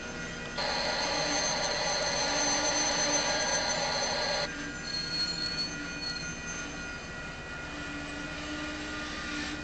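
Work train moving slowly past a grade crossing, with a loud steady hiss that starts suddenly about half a second in and cuts off about four seconds later.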